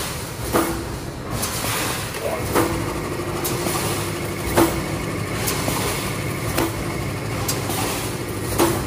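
Automatic steel wire welded mesh machine running: a sharp clank every two seconds, each stroke of its working cycle, with lighter ticks between, over a steady machine hum.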